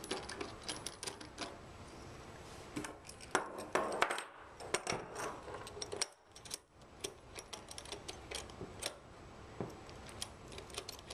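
Stainless steel sanitary tri-clamps being fitted by hand around the joints of a Sentry ISOLOK M4KSA sampler: scattered sharp metallic clicks and clinks of clamp and steel parts, busiest a few seconds in.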